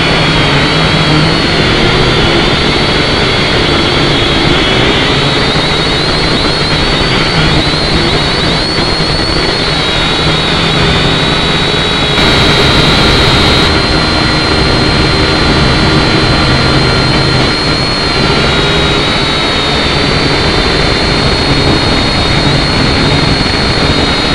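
Swann QuadForce quadcopter's electric motors and propellers whining loudly and steadily, picked up by the drone's own onboard microphone, the pitch of the whine wavering slightly as it flies.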